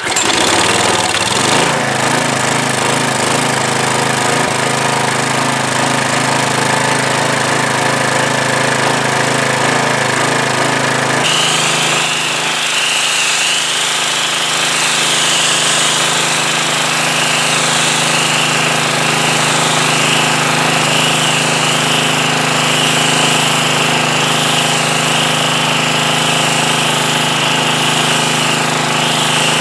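Gas pressure washer's small engine catching on a pull of the starter cord and then running steadily. About a third of the way in, the running engine is joined by the hiss of the high-pressure spray from the wand striking concrete.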